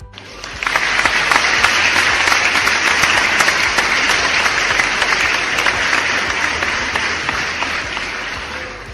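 Applause sound effect: a large crowd clapping, swelling up over the first second, holding steady, then fading near the end.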